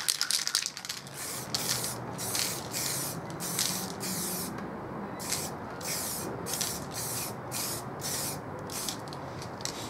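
Aerosol spray-paint can hissing in many short, quick bursts, about one to two a second with a short pause near the middle, as paint is dusted on to shade a curve.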